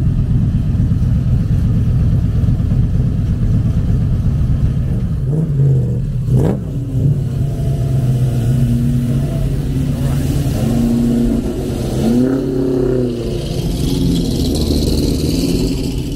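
Shelby Cobra replica's engine rumbling loudly as the roadster pulls away at walking pace between parked cars, with a few short revs that rise and fall in pitch in the second half.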